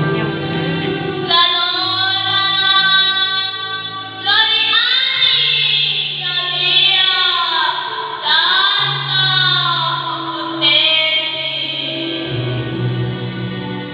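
A song: a high female voice sings long held notes with vibrato over an accompaniment of low sustained bass notes that change every couple of seconds.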